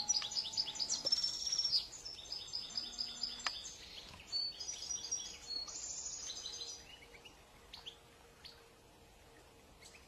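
European goldfinch singing: a fast, tinkling twitter of high notes for about seven seconds, then a few single call notes.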